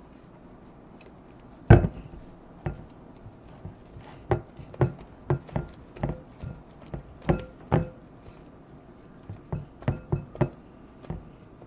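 Slime being worked in a bowl: a dozen or more irregular sharp clicks and knocks, some with a short ring, the loudest about two seconds in.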